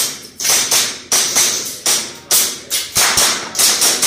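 Airsoft pistol fired in a rapid string of shots, about a dozen sharp cracks at uneven spacing of roughly two to three a second, each dying away quickly.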